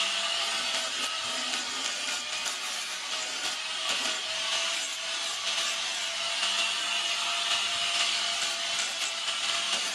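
A power tool running steadily as it grinds or sands metal, with a constant motor whine under an even abrasive hiss.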